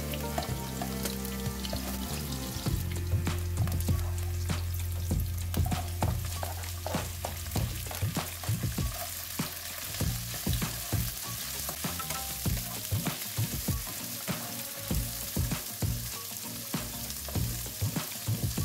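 Stir-frying in a non-stick wok: oil sizzling while a wooden spatula stirs and scrapes through the food, tapping against the pan many times. First garlic and onion are frying, later baby corn, carrot and green beans.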